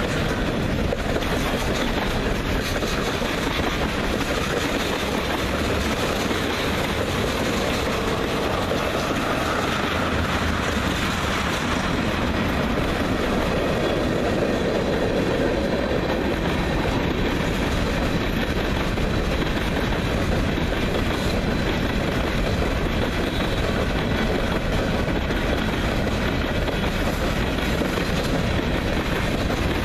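Freight train cars (covered hoppers) rolling past at close range: a steady, even rumble of steel wheels on the rails.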